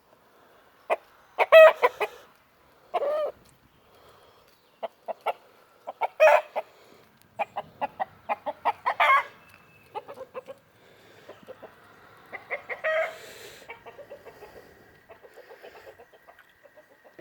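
Rooster clucking and squawking in a series of short, irregular calls, the loudest about a second and a half in.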